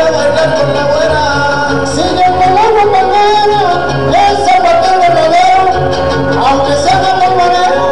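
Huapango (son huasteco) played live by a trio huasteco of violin, jarana and huapanguera, with a voice singing over it.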